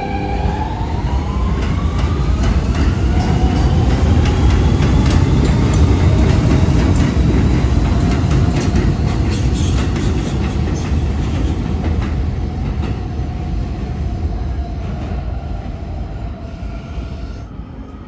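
New York City subway train pulling out on an elevated track. Its motor whine rises in pitch over the first few seconds above a heavy rumble of wheels on rails, which swells and then fades as the train moves away.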